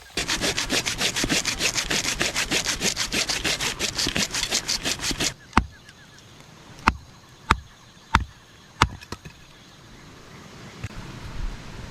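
Small hand saw cutting through wood with quick, even back-and-forth strokes for about five seconds, then stopping; five sharp knocks follow over the next few seconds.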